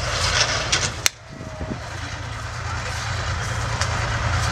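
Warrior infantry fighting vehicle's engine running steadily under wind noise on the microphone. A single sharp bang about a second in, after which the wind noise drops away and the engine hum slowly builds again.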